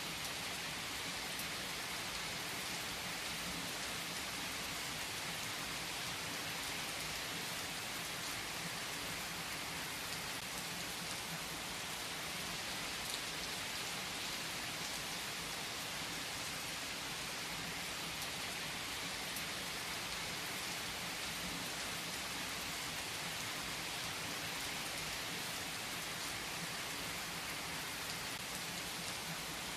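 Steady rain falling, an even hiss of drops at a constant level with no change throughout.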